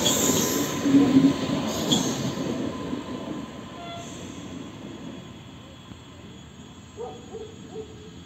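Electric commuter train's last cars rolling past on the rails, with a few louder clatters about one and two seconds in, then its wheel noise fading steadily as the train pulls away.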